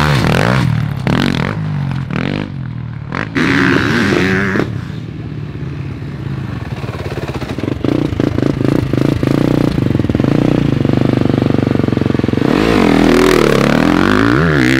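Pit bike engines revving, the pitch rising and falling several times, with a stretch of steady rapid engine pulses in the middle.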